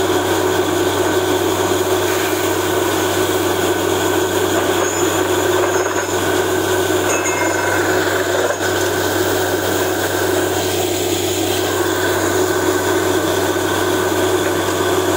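Truck-mounted borewell drilling rig running with a steady drone and hiss as it blows muddy water and rock cuttings up out of the bore hole, a sign that the bore is yielding water.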